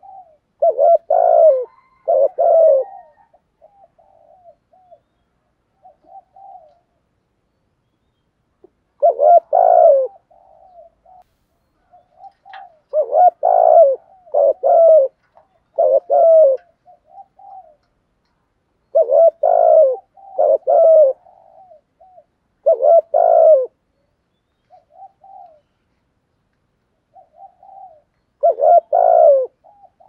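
Spotted dove cooing: bouts of two to four deep, throaty coos, repeated every few seconds, with faint short notes between the bouts.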